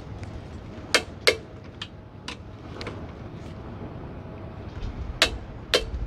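Torque wrench clicking as the brake caliper bolts are tightened to 33 foot-pounds. A loud pair of sharp clicks comes about a second in and another near the end, with fainter ticks between them.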